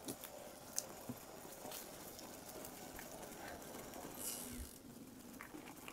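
Riese and Muller Superdelite Mountain e-bike rolling down a leaf-covered dirt trail: faint tyre noise with scattered light clicks and rattles from the bike, and a brief hiss about four seconds in.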